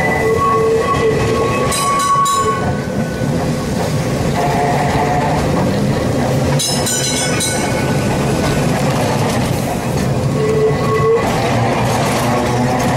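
Heritage electric tram running along its street track, heard from on board: a steady rumble and rattle of the car on its rails. Twice there is a short high ringing sound, about two seconds in and again about seven seconds in.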